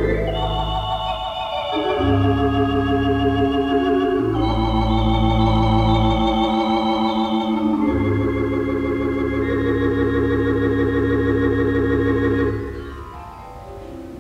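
Wurlitzer theatre organ (the Gaumont Manchester 4-manual, 14-rank instrument) playing full, sustained chords with a wavering tremulant. The chords change a few times, then the organ breaks off about twelve seconds in, leaving a quieter falling phrase. It is heard through an off-air mono tape recording.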